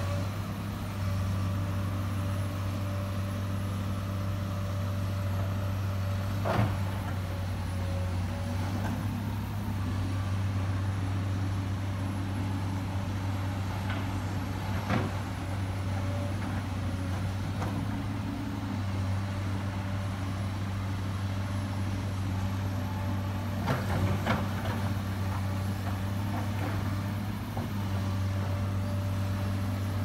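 Komatsu PC200 excavator's diesel engine running steadily as its boom and bucket paddle the pontoon through the water, its pitch rising and falling a little, with a few sharp knocks now and then.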